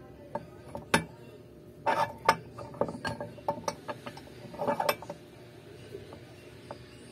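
Metal clicks and clinks from a homemade arbor press used as a fret press, as its steel handle bar and fittings are handled and set in place. The clicks come singly about a second in, then in short rattling clusters around two, three and five seconds.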